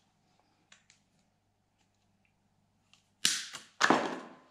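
Two nylon zip ties pulled tight through their locking heads in quick succession, each a short ratcheting zip, with a few faint handling clicks before them.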